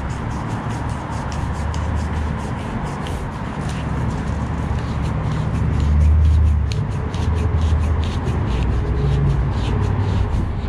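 A new plastic hose cuff being twisted by hand onto the ribbed end of a pool vacuum hose: plastic rubbing and scraping with a quick run of small clicks as it turns on the hose ribs, over a low rumble that swells about six seconds in.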